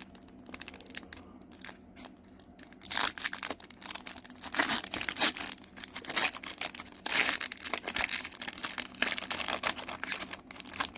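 Crinkling and tearing of a foil trading-card booster pack wrapper, in irregular bursts loudest around three, five and seven seconds in.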